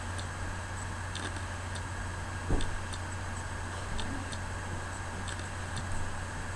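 Faint, fairly regular ticking, about two ticks a second, over a steady low hum, with one soft thump about two and a half seconds in.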